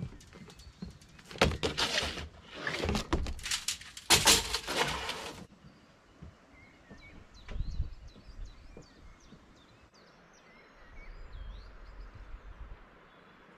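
Stiff PVC roofing membrane rolls rustling and scraping as they are handled, in several loud crackling bursts over the first five seconds. After that, small birds chirp lightly.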